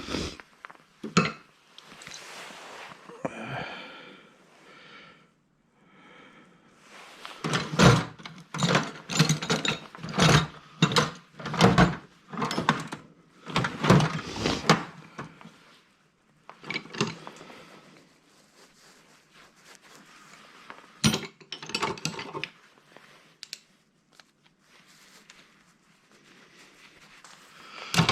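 Hands working on metal scrap parts: clicks, clanks and knocks as pieces are handled and pried apart, with a dense run of sharp knocks in the middle and a few brief squeaks near the start.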